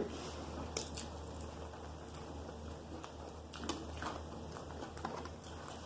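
Quiet chewing of a fried shrimp and oyster po'boy, with a few soft mouth clicks and smacks, over a low steady hum.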